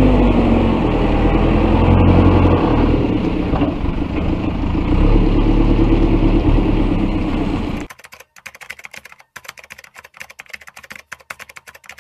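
Backhoe loader's diesel engine running, with some clatter. It cuts off abruptly about eight seconds in, followed by a run of faint rapid clicks.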